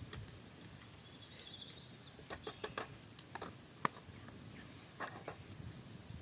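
Faint outdoor ambience with a few short bird chirps about two to three seconds in, and scattered light clicks and crackles through the middle, the sharpest one near four seconds.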